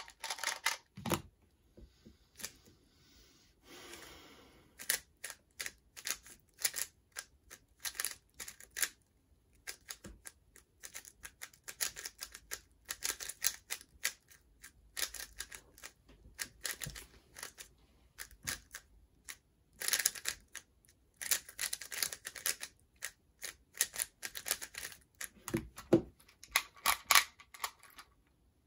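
Plastic twisty puzzles being turned fast in a speedsolve: dense, irregular clicking and clacking in quick flurries, with a couple of short pauses.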